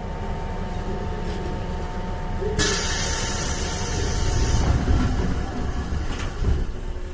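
Interior running noise of a 415 series 1500-subseries electric multiple unit: a steady low rumble with a thin steady tone. About two and a half seconds in, a sudden burst of compressed-air hiss lasts roughly two seconds, and the tone cuts off with it.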